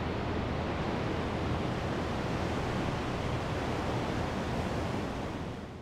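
Steady rush of ocean surf and wind, fading out near the end.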